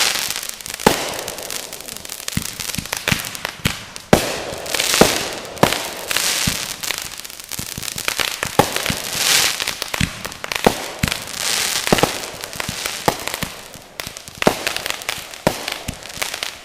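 Consumer fireworks going off: a run of sharp bangs, some in quick succession, mixed with several swells of crackling hiss.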